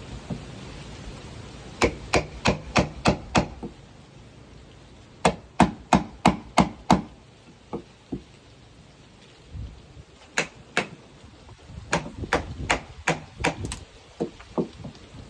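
Hammer striking wood in quick runs of about six blows, three or four a second, with pauses between runs and a few lighter taps.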